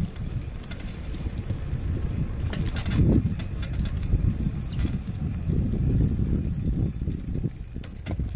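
Wind buffeting the microphone, with tyre rumble, while riding a bicycle along a road: an uneven low rumble throughout.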